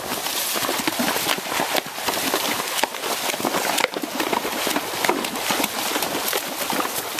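Hoofbeats of a horse moving fast over leaf-covered woodland ground: a quick, continuous clatter mixed with the crunch and rustle of dry leaves.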